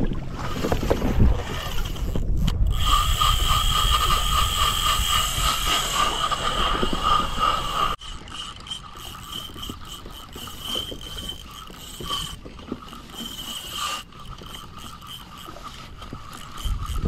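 A fishing reel ratcheting steadily, a fast clicking whir with a constant pitch, over water and handling noise in the first few seconds. It drops suddenly in level about eight seconds in and carries on more quietly.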